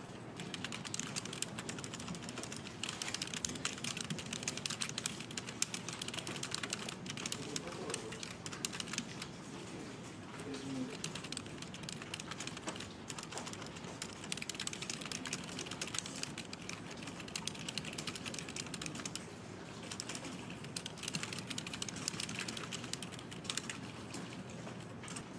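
Fast typing on a Logitech computer keyboard: a steady stream of key clicks with a few brief pauses.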